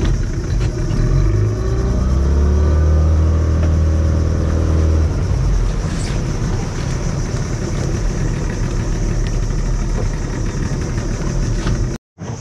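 Outboard motor of a small fibreglass boat speeding up, its pitch rising over the first few seconds, then running steadily under way. The sound cuts off abruptly near the end.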